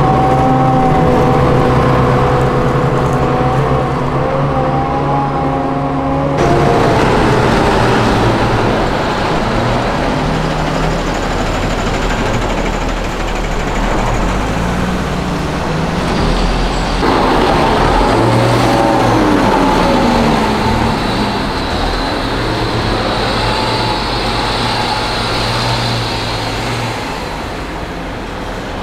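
Heavy military diesel engines running as a convoy drives past: first a Piranha V armoured personnel carrier with a steady engine drone, then Rheinmetall MAN military trucks. One truck's engine note falls in pitch about two-thirds of the way through.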